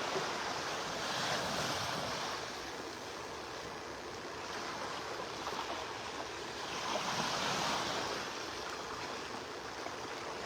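Small Gulf of Mexico waves breaking and washing up the beach, the surf swelling about a second in and again about seven seconds in.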